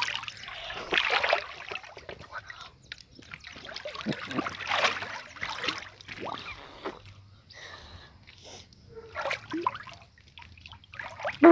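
Water heard through a phone's microphone held underwater in a pool: muffled, irregular sloshing, bubbling and gurgling.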